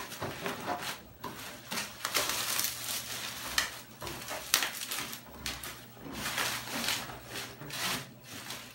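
Plastic bubble-wrap packaging crinkling and rustling in irregular bursts as a parcel is unwrapped by hand.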